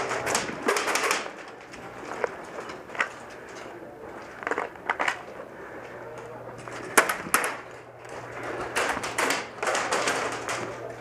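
Slow, irregular footsteps crunching on gravel, with rustling of clothing and gear and a few sharper clicks.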